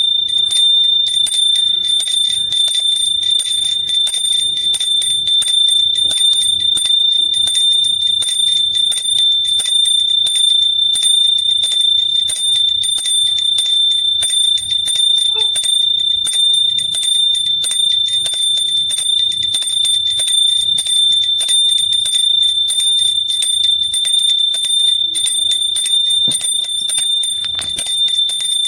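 Small metal hand bell rung rapidly and continuously, its clapper striking many times a second over one steady, high ringing tone.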